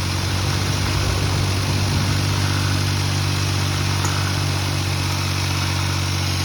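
Suzuki Jimny JB23's 660 cc turbocharged three-cylinder engine running steadily at an even speed.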